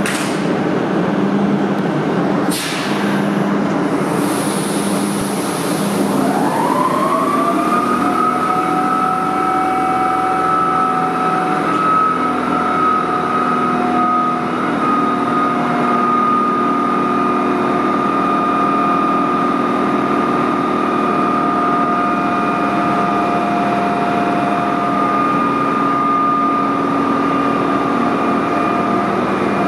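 SNCF BB 7200 chopper-controlled electric locomotive pulling away with its coaches. There is a sharp knock about two and a half seconds in and a brief high hiss. Then the traction whine rises in pitch for a couple of seconds and settles into a steady high tone over a low hum.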